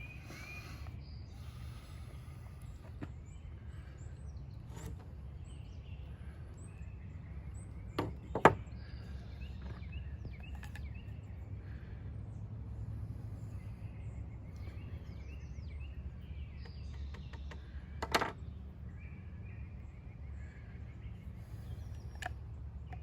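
Outdoor ambience: a steady low rumble with faint bird chirps, broken by a few sharp snaps. The loudest are a pair about eight seconds in and another about eighteen seconds in.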